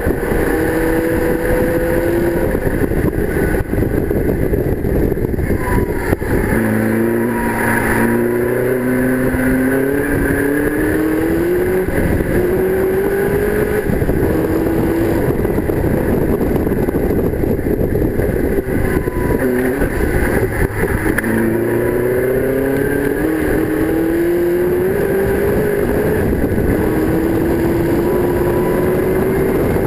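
In-car sound of a TVR Tuscan Challenge race car's 4.5-litre AJP V8 at racing speed. The engine note climbs in steps as it accelerates through the gears, drops sharply about six seconds in and again about twenty seconds in, then climbs again. Constant wind rush comes through the open cockpit.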